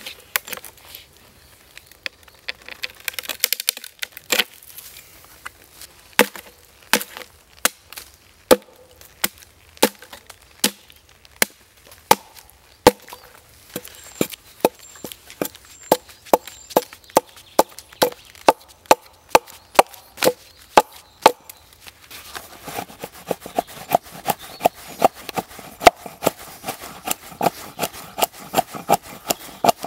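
Axe chopping into a split wooden plank to hew it flat: a long run of sharp single chops, roughly one every half second to second. Over the last several seconds the strokes come quicker and closer together.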